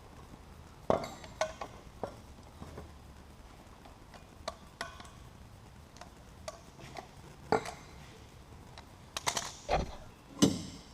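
Scattered metal clinks and knocks of tools and steel exhaust pipe being handled, about a dozen separate hits with some ringing; the loudest comes near the end.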